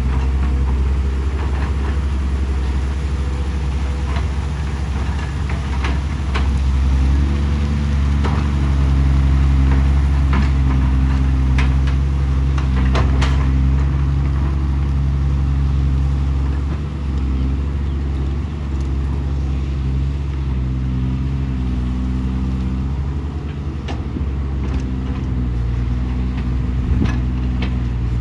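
Excavator diesel engine running under load, its pitch rising about seven seconds in and dropping back around seventeen seconds, with occasional sharp clanks.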